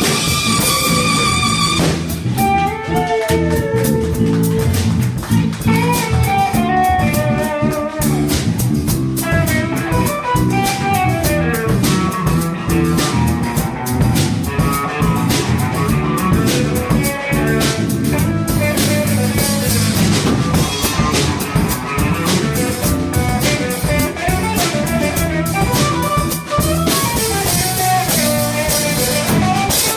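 Live small band playing a jazzy tune with alto saxophone, hollow-body electric guitar, electric bass and drum kit, with the saxophone carrying the melody.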